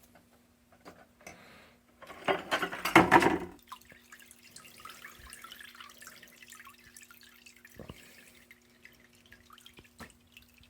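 Evaporust rust-remover liquid splashing loudly for about a second and a half, then faint dripping and trickling, over a steady low hum.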